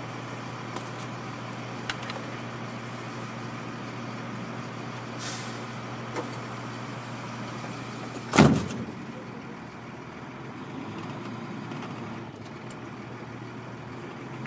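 Military truck engine idling with a steady hum, heard from inside the cab. A single sudden loud knock comes about eight seconds in.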